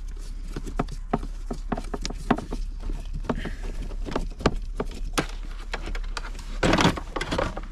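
Irregular clicks and light taps of a screwdriver working the T20 Torx screws out of a Fiat Ducato's plastic lower dashboard panel, with a brief louder rustle of the trim being handled near the end.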